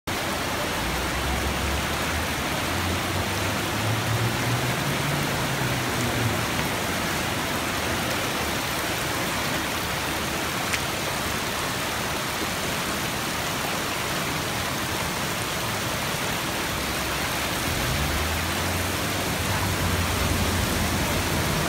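Muddy floodwater rushing down a paved street and churning around parked vehicles, a steady, even rush, with a low rumble swelling near the start and again near the end.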